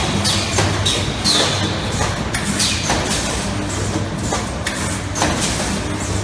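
Automatic wire hook row ball-head welding machine running: a steady low hum with frequent irregular metallic clacks, each followed by a short falling squeal.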